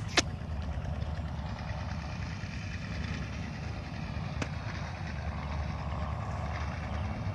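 Steady low rumble with a hiss above it, and a single sharp knock about four and a half seconds in as a hoe blade strikes dry, cracked ground.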